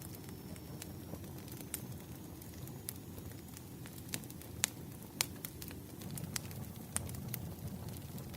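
Wood fire crackling: irregular sharp pops and snaps over a steady low rumble of burning logs, the loudest pops a little past halfway through.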